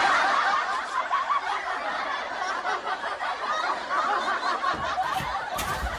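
Laughter from several people at once, a dense chuckling and snickering that runs on steadily. A couple of low thumps come near the end.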